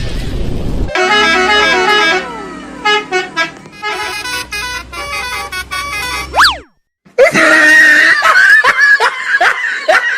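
Basuri telolet bus horn playing a multi-tone tune with sliding notes, after a loud noisy burst in the first second. After a short rising whistle and a brief break it plays a loud run of quick, repeating rising toots.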